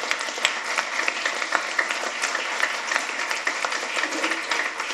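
Audience applause: many people clapping steadily in a small room after a presentation ends.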